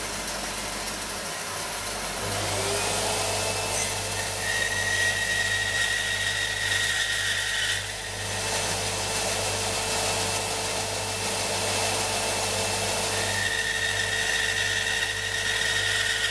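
Startrite 401E bandsaw's motor starting about two seconds in, its hum rising in pitch and settling, then running steadily. A high thin whine comes and goes twice while it runs.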